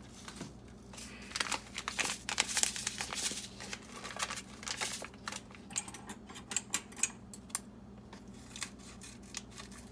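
Paper sachet of flan powder crinkling and rustling as it is handled and pulled at to get it open, with a run of sharper separate clicks in the second half.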